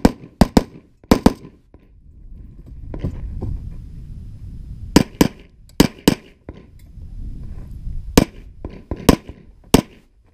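Gunshots from a competitor firing a course of fire, mostly in quick pairs about a quarter second apart. Several shots fall in the first second and a half, then comes a pause of a few seconds, then pairs about five and six seconds in and single shots near the end.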